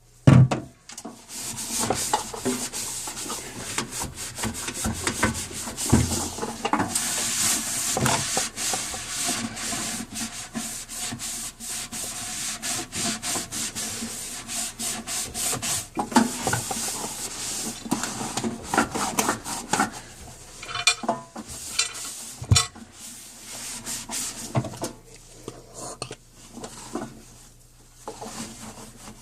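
Hand scrubbing and wiping inside a microwave oven, with irregular rubbing strokes as foaming cleaner and grime are worked off. A sharp knock sounds just after the start and another about 22 seconds in.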